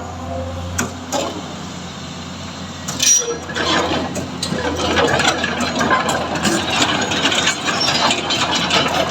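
Komatsu PC200 excavator's diesel engine running with a steady hum. About three seconds in it grows louder and busier, with many short metallic clicks and clinks.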